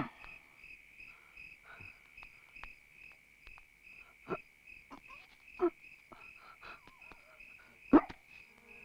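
Crickets chirping in a steady, evenly pulsing trill. Several short thuds and scuffs break in, the loudest a sharp thud near the end.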